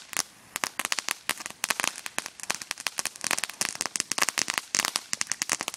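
Small firecrackers going off in a rapid, irregular string of sharp pops and crackles.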